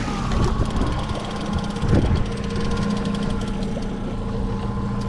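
Boat motor running steadily at low throttle just after being throttled back for a hooked fish, with a fast faint ticking over the hum and a single knock about two seconds in.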